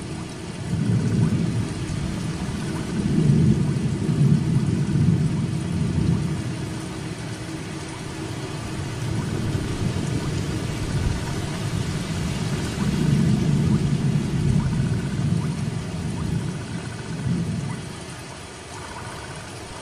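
Steady rain of a heavy downpour, with a low rumble that swells and fades twice, a few seconds in and again past the middle.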